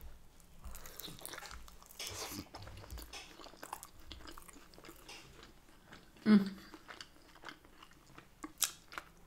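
A person biting into and chewing a hand-held piece of Yorkshire pudding filled with sausage and sweetcorn mash, with wet mouth clicks and smacks throughout. There is one louder mouth sound about six seconds in.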